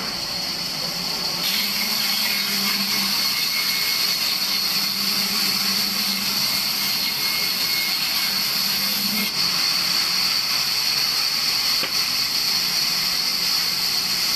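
Large vertical band saw cutting lengthwise through a dry log as it is pushed along the table. The saw gives a steady, high noise that grows louder about a second and a half in, as the blade bites into the wood.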